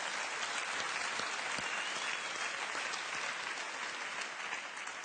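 Studio audience applauding steadily, easing slightly near the end.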